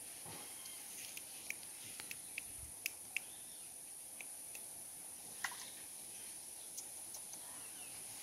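Steady high-pitched drone of insects, with a scattering of short sharp ticks, most of them between one and three seconds in and one more about five and a half seconds in.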